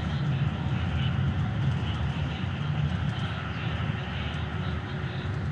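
Keikyu 1000 series electric train running at speed, heard from inside the car behind the driver's cab: a steady rumble of wheels on rail with running noise over it.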